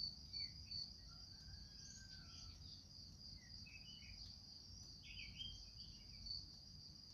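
Near silence with a faint, steady high-pitched insect trill, like a cricket's, pulsing for about the first second and then continuous. A few faint short chirps sound over it.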